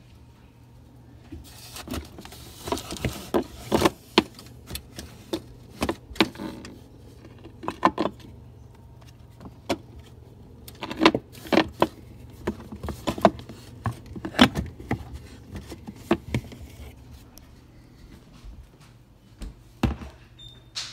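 Rummaging through a refrigerator: irregular clinks and knocks of jars, bottles and containers being shifted on the shelves, with some rustling, over a low steady hum.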